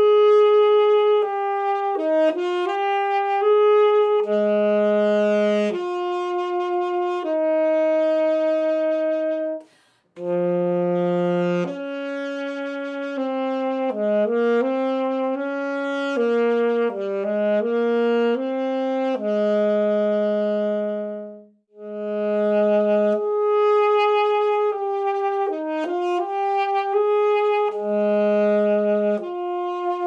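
Yamaha YAS-280 alto saxophone playing a slow solo melody of held and stepping notes, with a short breath break about a third of the way in. After a second break about two-thirds through, a Yamaha YAS-62 alto saxophone begins the same phrase.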